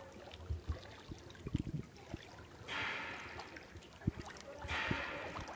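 Floodwater splashing and sloshing close by, with two longer swishing splashes about two seconds apart in the second half, and a few low knocks and bumps before them.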